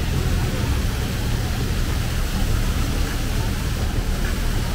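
Busy city street ambience: a steady low rumble of traffic with the chatter of a crowd of pedestrians.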